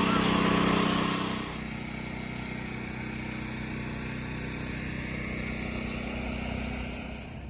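A vehicle engine running steadily, louder for about the first second and a half, then dropping to a quieter, even run.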